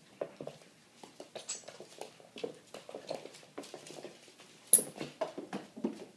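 American Eskimo puppy scrambling about on a hardwood floor: a quick, uneven patter of claws and paws with small knocks, and one sharp click a little under five seconds in.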